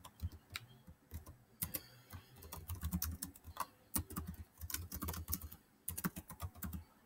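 Typing on a computer keyboard: quick, irregular key clicks in short runs with brief pauses between them.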